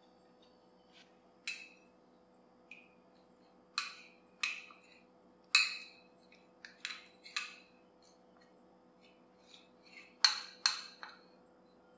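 Kitchen utensil clinking against a ceramic bowl: a string of sharp clinks in irregular bunches, some ringing briefly, with the loudest pair near the end.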